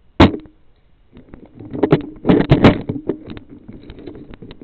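Rustling, knocks and clicks close to a worn action camera's microphone as the wearer moves. A sharp crack comes just after the start, and a busy cluster of knocks comes about halfway through.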